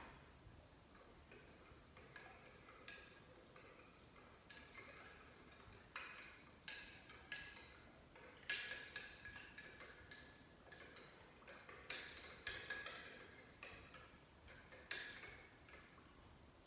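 Small spoon clinking against a ceramic coffee cup as coffee is stirred: light, irregular ticks, faint at first and coming louder and more often from about six seconds in.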